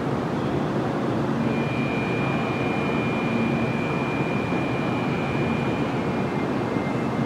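Steady rumbling background noise of a railway station platform. A faint high whine runs from about a second and a half in to about six seconds in.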